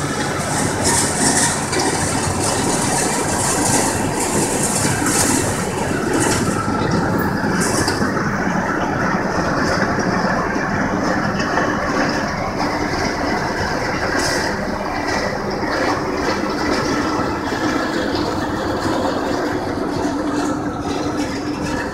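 John Deere 6830 tractor's six-cylinder diesel engine working steadily under load, driving a McHale Fusion 3 baler-wrapper that is picking up and baling grass, with the machinery's mechanical rattle mixed in. A hiss in the highs fades out about eight seconds in.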